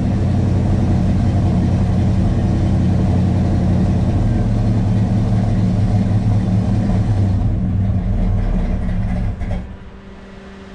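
1968 Pontiac GTO's V8 running cold after sitting six months, with no choke fitted, so it is cold-blooded; about nine and a half seconds in it cuts out, and the level falls sharply.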